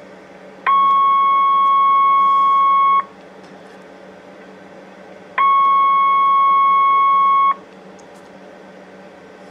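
Steady test tone from a Tedelex TE-7000 CB radio's receiver, demodulating a signal generator's test signal. It sounds twice for about two seconds each and cuts off in between as the generator and radio are stepped to the next channel.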